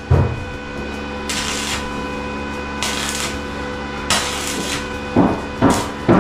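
Hammer blows: one knock at the start, then a quick run of strikes about a second apart near the end. Between them come three short scraping sounds.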